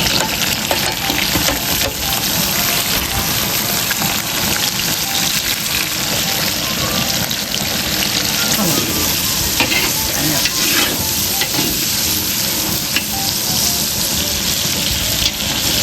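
Andouille sausage sizzling in hot bacon fat in a large pot: a loud, steady frying hiss, with a few brief clicks.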